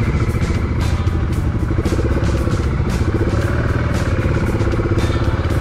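Motorcycle engine running steadily as the bike rides along a dirt trail, with music with a steady beat laid over it.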